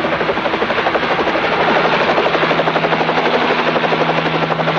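Tandem-rotor helicopter's rotors chopping in a rapid, steady beat over a low engine hum that grows stronger about two seconds in, as it comes down to land.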